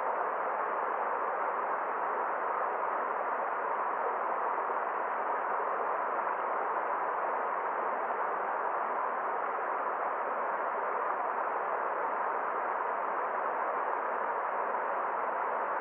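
Forest stream water flowing: an even, unbroken rushing hiss, mid-pitched, with no splashes or changes.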